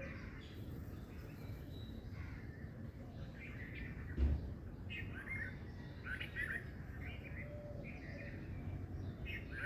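Several birds chirping in quick short calls, busier in the second half, over steady low background noise. A single low thump about four seconds in.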